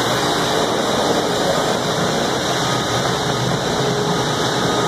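Several wet/dry shop vacuums running steadily, sucking up floodwater, a loud constant noise.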